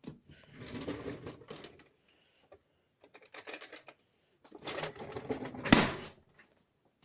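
Rattling and clattering of objects being handled in three short spells, with a sharp knock near the end.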